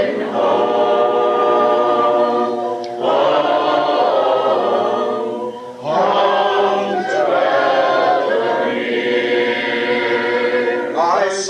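Choir singing a cappella in long held chords, with brief breaths between phrases about three and six seconds in.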